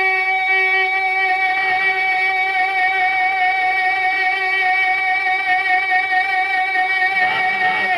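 A man's voice holding one long sung note of a naat over a PA system, with a slight waver. Near the end the melody starts to move again.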